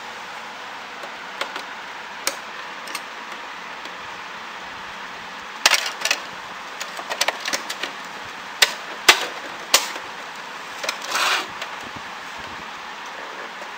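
Hard plastic clicks, knocks and rattles from the parts of an Epson inkjet printer being handled, scattered irregularly and loudest between about six and ten seconds in, with a short scrape near the end, over a steady hiss.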